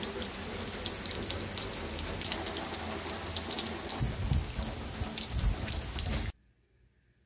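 Steady rain falling, with many individual drops ticking close by and some low rumbling a few seconds in. It cuts off suddenly about six seconds in, leaving faint indoor room tone.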